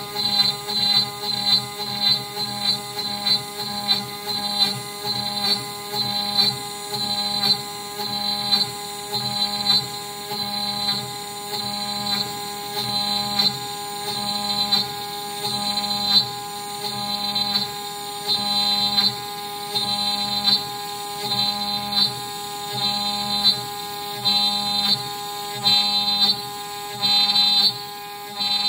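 CNC router spindle running with a steady whine while its bit pockets out a wooden board. A rhythmic swell of the cut and the axis motors repeats about once a second as the machine makes its back-and-forth pocketing passes, spacing out slightly toward the end.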